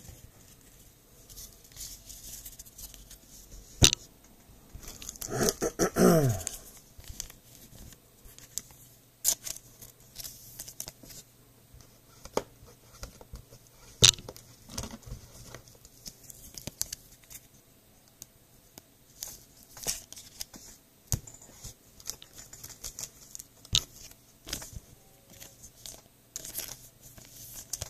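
Baseball trading cards and plastic card sleeves being handled by hand: soft intermittent rustling, sliding and light clicks, with a sharp click about four seconds in and another about fourteen seconds in. A short voice-like sound, falling in pitch, comes around six seconds in.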